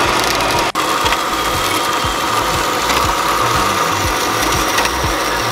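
Metal-cutting band saw running and cutting through annealed steel billet pieces: a steady motor hum and blade rasp with a regular low knock, broken by a momentary dropout just under a second in.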